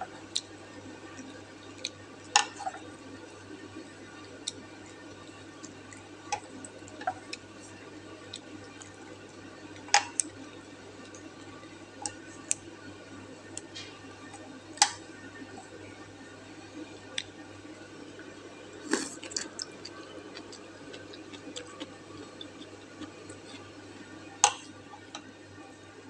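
Sharp, scattered ticks and taps of wooden chopsticks against a stainless steel pot while eating noodles, coming irregularly every second or few, over a steady low hum.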